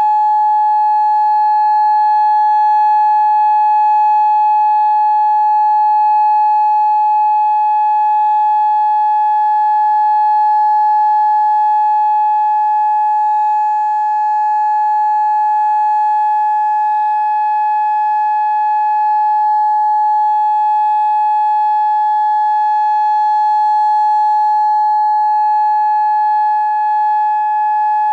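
Federal Signal Modulator 6024B electronic outdoor warning siren sounding its steady alert signal: one loud, unwavering tone with no rise or fall in pitch, the signal for a full outdoor alert.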